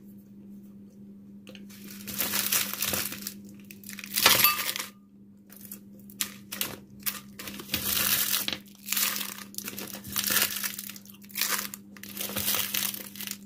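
Plastic wrapping crinkling and rustling in irregular bursts, with some sharper crackles, as gift packaging and candy wrappers are handled.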